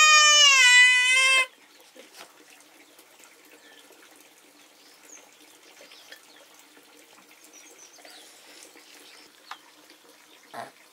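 A farm animal's long bleating call, which cuts off about a second and a half in. After it come only faint background noise and scattered light clicks.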